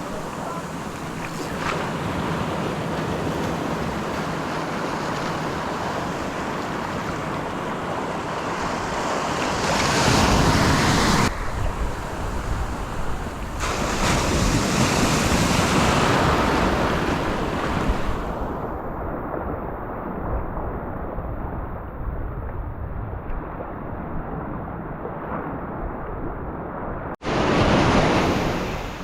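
Ocean surf washing onto a beach, with wind on the microphone. Waves swell loudest about ten, fifteen and twenty-eight seconds in, and the sound changes abruptly twice, at cuts.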